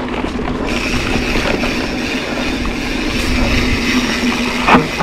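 Mountain bike rolling fast down a dirt singletrack: tyre and wind rumble, with a steady high buzz from about a second in, the rear freehub ratcheting as the bike coasts. A single loud clattering knock near the end as the bike hits a bump.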